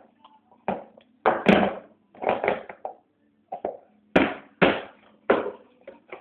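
A baby knocking a cup down on a high-chair tray and pushing it about: a dozen or so irregular thunks and taps.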